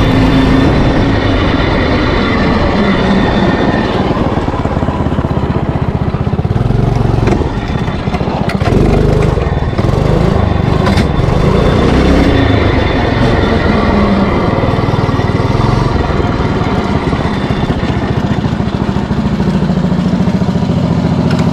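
Homemade trike's engine running under a rider, its pitch rising and falling as the throttle opens and closes, then settling to a steadier idle near the end.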